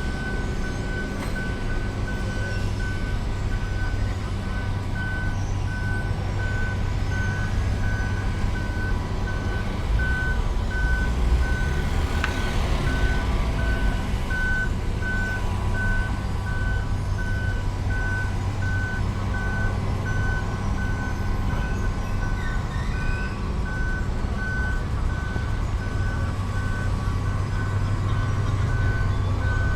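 A heavy construction vehicle's reversing alarm beeping steadily at one pitch, about once a second, over its diesel engine running low and steady.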